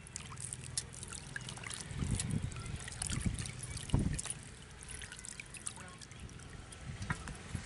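Water sloshing and trickling in a steel pot as hands wash raw chicken pieces, lifting them out so water drips back in. There are heavier sloshes about two, three and four seconds in.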